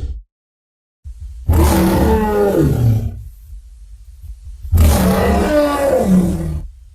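Two roars of a designed Majungasaurus dinosaur sound effect, layered from bear, elephant and gorilla recordings, each about one and a half to two seconds long with a falling pitch, over a low rumble after a second of silence.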